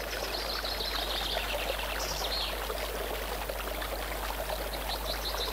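Steady babbling of a brook, an even rushing trickle of water, with a few faint high chirps over it at times.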